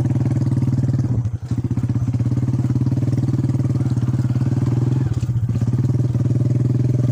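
Small motorcycle engine running steadily while being ridden, heard close up from the seat. The engine sound dips briefly about a second in, then carries on evenly.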